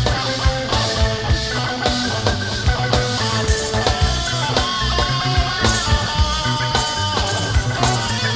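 Rock band playing an instrumental passage without singing: a melodic lead line with bends and glides over steady drums and bass.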